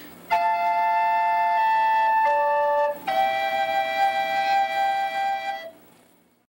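Music of two flute-like parts playing long held notes in harmony. The notes come in two phrases with a short break about three seconds in, and the music fades out to silence near the end.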